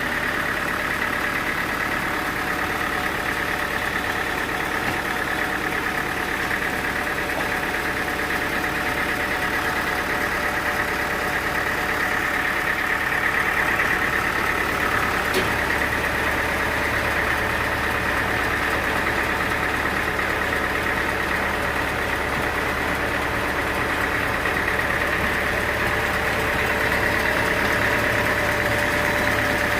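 Sawmill machinery running steadily: a continuous engine-like drone with a high, even whine over it.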